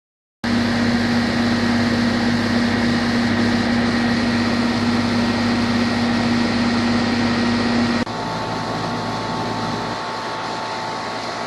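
Outdoor air-conditioning condenser unit running: a steady rush of air from the condenser fan with a strong low hum. About eight seconds in the sound changes abruptly, becoming quieter, with the hum gone and a fainter higher tone in its place.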